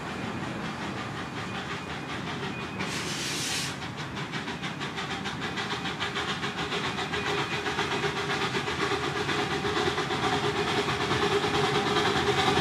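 Miniature-railway steam locomotive approaching, its exhaust beats growing steadily louder. A brief, sharp hiss of steam comes about three seconds in.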